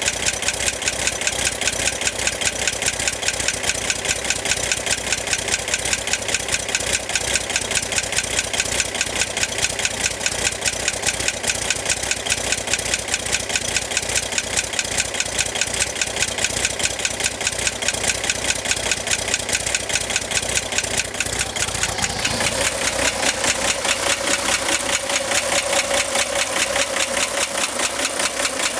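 Air-cooled flat-six engine of a 1965 Chevrolet Corvair idling with a fast, even ticking. The owner places the tick at the top of the engine by the cooling fan, and tightening the fan belt barely eased it. Some twenty seconds in, the sound shifts and a steady whine comes to the fore.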